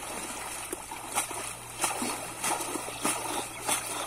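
Water splashing in a series of sharp splashes, about five a little over half a second apart.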